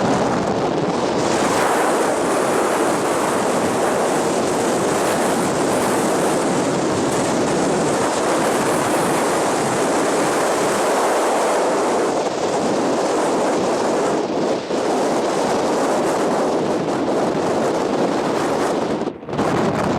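Strong wind buffeting the microphone: a loud, steady rush with a brief dip near the end.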